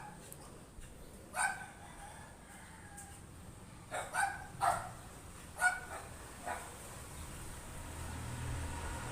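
Background animal calls: about six short, separate yelps or clucks, clustered between about 4 and 6.5 seconds in. A low rumble builds near the end.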